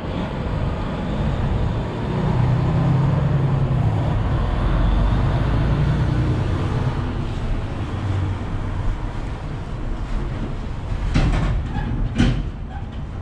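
A heavy vehicle's low engine rumble close by, swelling for a few seconds before easing off, with two short sharp knocks near the end.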